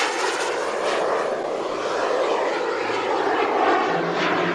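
B300F turbine engine of a large-scale RC English Electric Lightning jet flying past. It makes a loud, steady jet rush, with whooshing sweeps in tone as the model passes.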